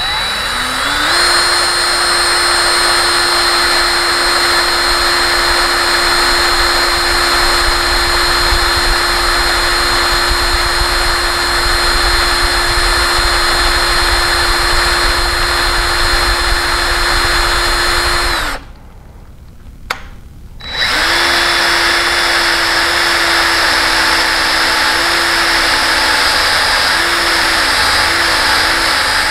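Electric hand drill boring a number three bit into the grinder's metal frame, making pilot holes for a 1/4-28 tap. The motor spins up at the start and runs steadily under load, stops for about two seconds around two-thirds of the way through, then starts again and keeps drilling.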